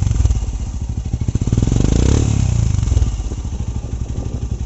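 Royal Enfield Himalayan's single-cylinder engine running through a Red Rooster aftermarket silencer with no dB killer fitted. It thumps steadily at idle, with one throttle blip about two seconds in before settling back.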